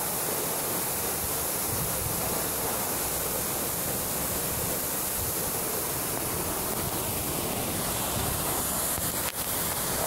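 Waterfall pouring down a rock face, a steady, even rush of falling water with no change in strength.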